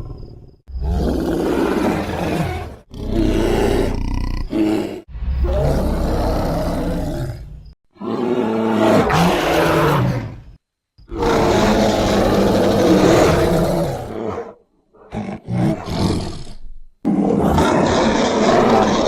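A series of about eight large-bear roars and growls used as sound effects for the extinct Florida spectacled bear. Each call cuts in and out abruptly, with brief silent gaps between them.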